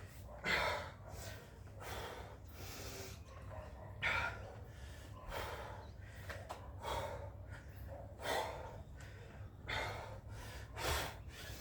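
A person breathing hard, in loud rapid breaths about one a second, the panting of heavy exertion.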